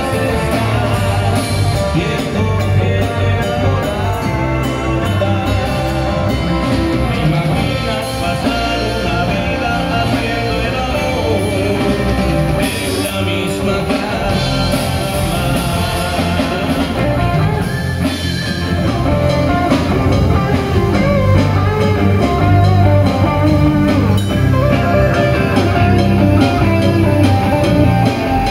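A live rock band playing a song on electric guitars, bass guitar and drum kit, a little louder in the second half.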